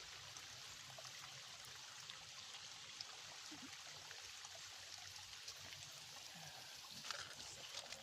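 Small shallow creek flowing, a faint steady rush of water, with a few soft clicks and a slightly louder stretch near the end.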